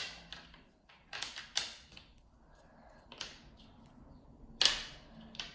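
Plastic Rubik's cube pieces clicking and tapping as edge pieces are fitted into place: several separate sharp clicks, the loudest near the end.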